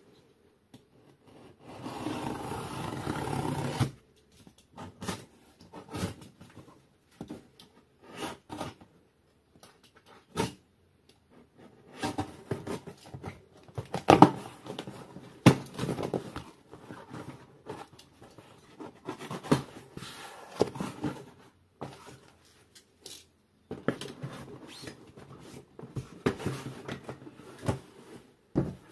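A cardboard speaker box and its packing being opened by hand. About two seconds in comes a steady rough noise lasting about two seconds, like the cover being torn open. Then scattered knocks, clicks and rustling of cardboard and packing as the box is worked open.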